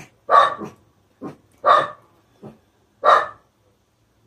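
Dogs barking at a sound they heard from the owner. There are three loud barks about a second and a half apart, with fainter barks between them.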